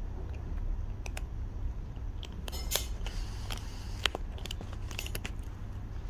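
A kitten crunching dry kibble: short, crisp cracks coming in quick clusters, over a steady low hum.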